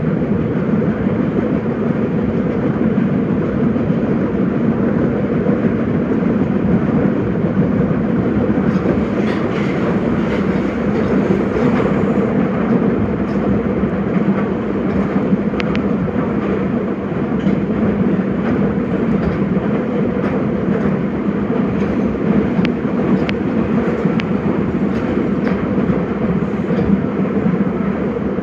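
Nagoya Municipal Subway 5050-series electric train running, heard from inside the leading car: a steady, loud wheel-on-rail and motor drone with scattered sharp clicks in the second half.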